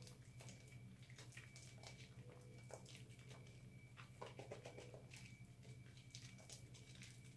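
Faint wet squishing and crackling of soapy hands working up lather on a bar of recycled soap, in irregular soft strokes, a little busier around the middle.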